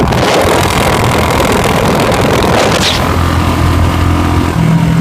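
Royal Enfield Bullet 350's single-cylinder engine running hard through its exhaust with rushing noise, settling into a steady hum in the second half. Two short cracks stand out, one near the start and one about two and a half seconds in.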